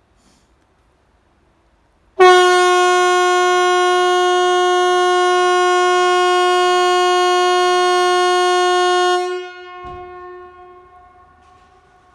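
Hesa Fredrik, Sweden's outdoor public warning siren, sounding its test signal: one loud steady tone with a rich, buzzy set of overtones. It starts abruptly about two seconds in, holds for about seven seconds, then cuts off, leaving a fainter tone that dies away over the next couple of seconds.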